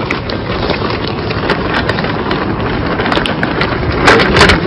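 Steady noise of a supermarket with scattered light clicks and knocks, and a louder clatter about four seconds in.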